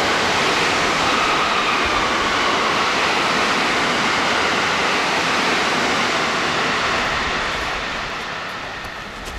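Loud steady rushing noise with a faint whine in it, fading away over the last two seconds.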